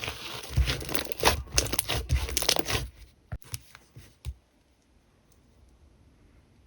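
Slime being handled and pulled apart, a dense crackling for about three seconds, then only a few faint clicks.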